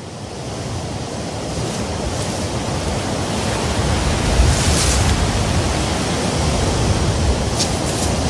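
Surf washing on a sandy beach at night, a steady rushing that fades in over the first few seconds, with a few brief faint hisses later on.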